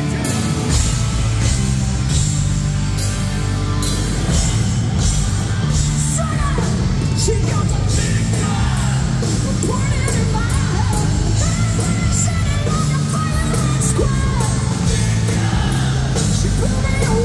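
Hard rock band playing live: distorted electric guitars, bass guitar and a drum kit with crashing cymbals. A lead singer comes in about six seconds in and sings over the band.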